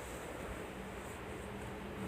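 Steady low background hiss of room noise, with a faint low hum and no distinct crack.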